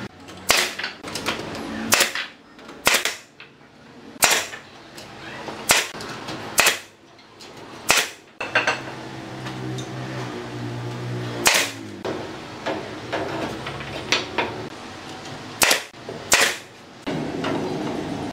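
Pneumatic nail gun firing single shots into wooden formwork, about a dozen sharp cracks at irregular intervals of one to a few seconds. A low steady hum runs for about three seconds in the middle.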